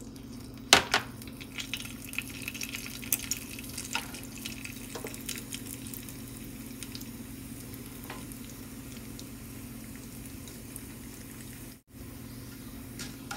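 Cumin and mustard seeds sizzling in hot oil in a frying pan, with scattered fine crackles that are busiest in the first few seconds and one sharp click about a second in. A steady low hum runs underneath.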